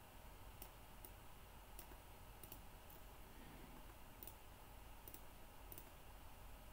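Faint, irregular computer mouse clicks, some in quick pairs, over a low steady hum.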